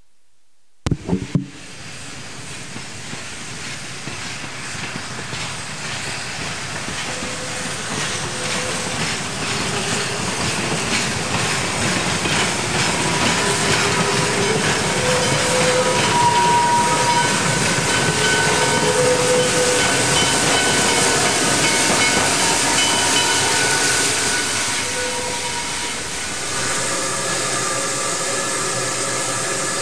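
An excursion train's caboose and open-sided passenger cars rolling past on the rails, a steady rumble that builds toward the middle and then eases. A few sharp knocks come about a second in.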